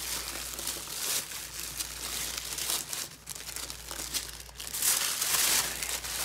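Tissue wrapping paper crinkling and rustling as hands unwrap a rolled package, with quick irregular rustles that grow louder about five seconds in.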